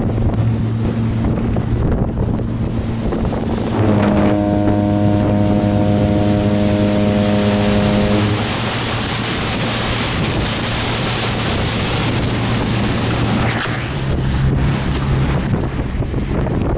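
Motorboat's outboard motor running steadily, with wind buffeting the microphone over a constant rush. About four seconds in, a higher whine joins for roughly four seconds, and near the end the motor's hum steps up in pitch.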